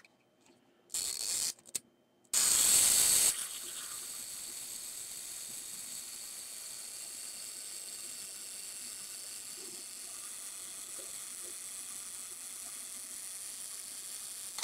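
Zenit 12SD film SLR's mechanical self-timer: a short burst of mechanism noise as it is set and started, then its clockwork escapement running steadily for about eleven seconds, ending in one sharp click as the shutter fires.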